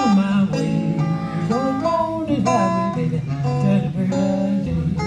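Acoustic guitar playing blues, with notes that bend and slide in pitch.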